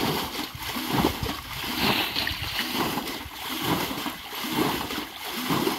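Muddy water splashing and sloshing as several metal pots scoop and throw it out of a shallow canal, repeated splashes in a steady rhythm of about two a second.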